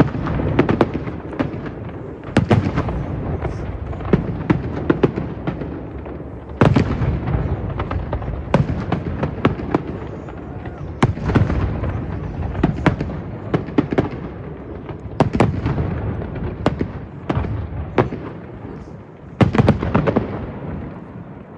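Fireworks display: a rapid, irregular run of bangs and crackling bursts with a rumbling echo beneath, in heavier volleys every few seconds and tailing off near the end.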